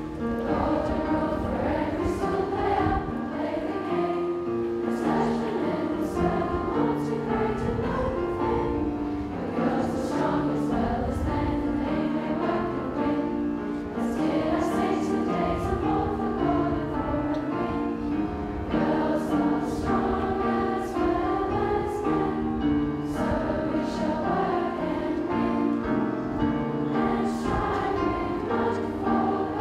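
A school assembly of girls singing the school song together as a choir, accompanied by piano.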